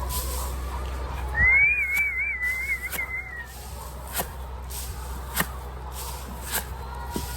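A person whistling one wavering high note for about two seconds, starting about a second and a half in, over a steady low hum with scattered light clicks.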